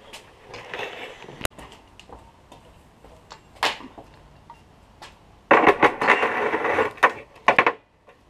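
Intake manifold with its wiring loom being set down and shifted on a sheet-metal bench. Scattered knocks and rustles lead into a loud burst of clattering and scraping from about five and a half seconds in until nearly eight.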